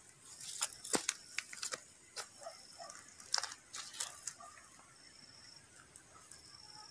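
Faint scattered clicks and crackles of a phone being handled while filming, over the first four seconds or so, then a few short high bird chirps near the end.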